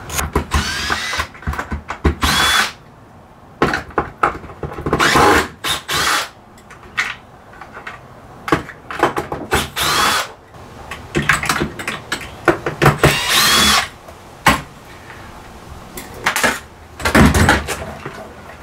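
Cordless drill-driver run in about half a dozen short bursts, its motor whine rising in pitch as it spins up each time, backing out screws while the old inverter system is taken apart. Small clicks of handling come between the bursts.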